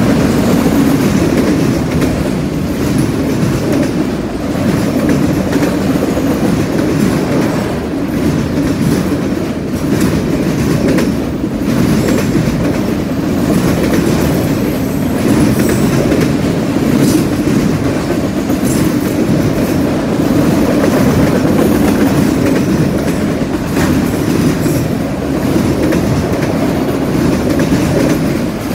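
Freight train cars rolling past at close range: a steady rumble of wheels on rail with irregular clicking as the wheels cross rail joints and a junction switch.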